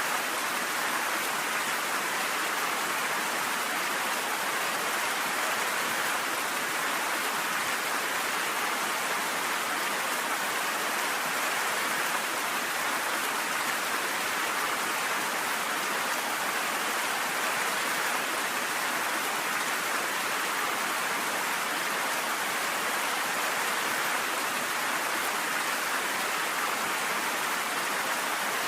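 Steady rain falling, an even hiss that holds level without a break.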